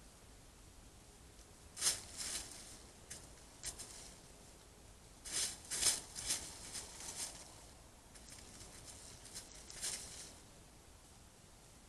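White-tailed deer buck's hooves crunching and shuffling in dry fallen leaves, in several short bursts, the loudest about two seconds in and a busier run around six seconds in.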